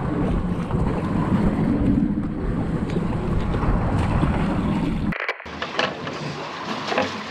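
Heavy wind rumble buffeting the microphone over the sea. About five seconds in it cuts to a quieter wash with a few light knocks and clicks.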